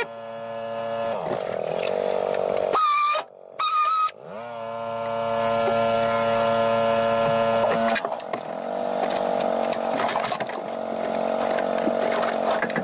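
Air-powered oscillating glass cutter running in bursts, cutting through the old glue that holds a pickup's rear window. It winds up to a steady whine, cuts out briefly, winds up again, and runs rougher from about two-thirds of the way in as it works through the bead.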